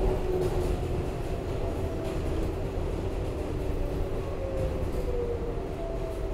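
Ride inside an R188 subway car under way: a steady rumble of wheels on the rails, with a whine of a few tones that slide slowly lower.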